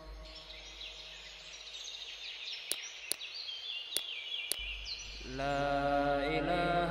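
Background music track: an interlude of high chirping sounds with a few sharp clicks, then the chanted vocal line comes back in about five seconds in.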